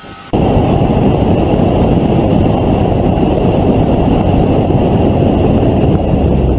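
Steady rush of wind and road noise from a car moving at speed, picked up by a camera on the hood. It starts suddenly about a third of a second in and stays loud and even.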